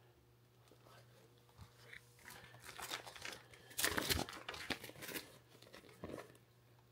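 Plastic packaging crinkling and rustling as vacuum-sealed meat packs are lifted and moved about, starting a couple of seconds in and loudest about four seconds in, with one more short rustle near the end.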